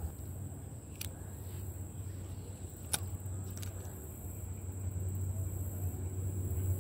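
Steady low rumble, slightly louder in the second half, with sharp clicks about a second and three seconds in as hook and fishing tackle are handled.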